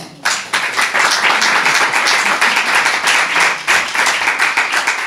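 Audience applauding, breaking out suddenly just after the start of a poem's last line being read, many hands clapping at once.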